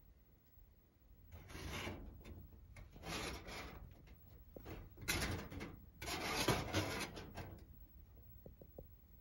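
Four rough rubbing noises, each lasting about half a second to a second and a half, followed by a few faint clicks near the end.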